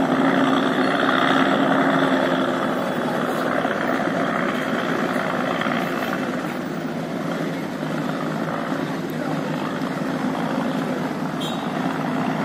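Engines of a roll-on roll-off car ferry running with a steady low drone as it manoeuvres, over a rushing hiss of churned water, easing off a little partway through.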